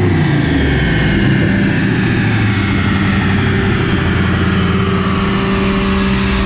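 Mini bike's small gas engine idling steadily, settling down from a rev right at the start.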